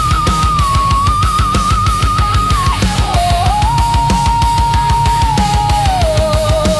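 Instrumental heavy metal passage with no singing. A fast, even kick drum plays under a held lead melody line with vibrato, which steps down in pitch about three seconds in and again near the end.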